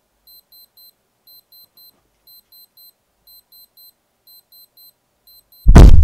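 Digital wristwatch alarm beeping in quick triplets about once a second as its countdown reaches zero. Near the end a sudden loud thump with a low rumble cuts in and dies away.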